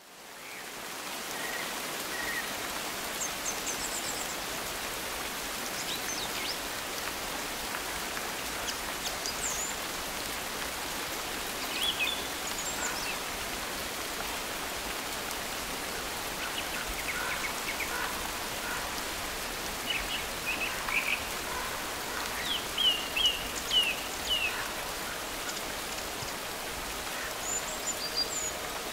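Steady rain, fading in at the start, with scattered short chirping calls over it; a cluster of louder chirps comes a little past the middle.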